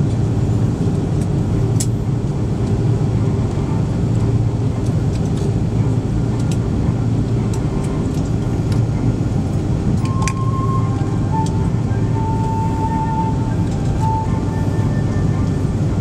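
Steady low rumble of an Airbus A330-200 taxiing, heard from inside the passenger cabin. About ten seconds in, a melody of short held notes starts playing over it.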